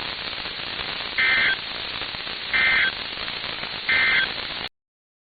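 Weather radio static hiss broken by three short, loud bursts of Emergency Alert System end-of-message data tones, a harsh buzzing warble, about 1.4 s apart, marking the end of the alert. The audio cuts off abruptly near the end.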